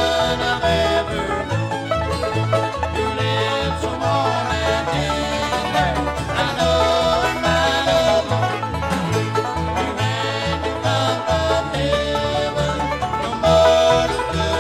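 Bluegrass band playing an instrumental passage: driving banjo over guitar and a steady bass line, with a melody line bending in pitch.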